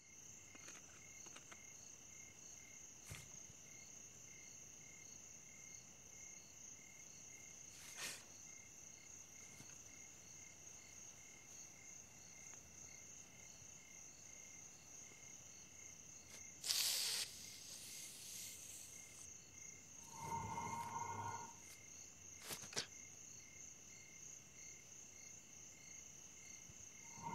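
Crickets chirping steadily as a faint night-time ambience. A few sharp clicks, a brief hiss about two-thirds of the way through, and a short lower sound a few seconds after it.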